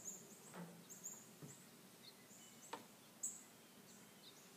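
Near silence outdoors, with faint bird chirps and a few soft clicks and taps, the loudest a little after three seconds in, from a nylon tie-down strap being fed through and handled.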